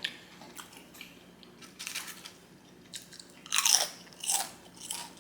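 Close-miked chewing and crunching of food in the mouth: soft, wet clicks, with a few louder crunchy chews about three and a half to five seconds in.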